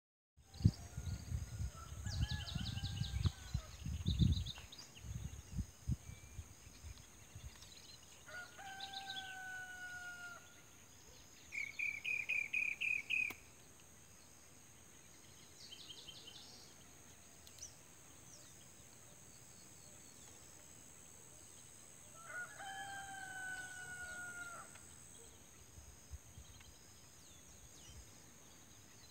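A rooster crowing three times over about half a minute, each crow a drawn-out call lasting a second or two, over a steady high insect drone. A low rumble of wind or handling on the microphone is loudest in the first few seconds, and a quick run of about eight short bird notes comes near the middle.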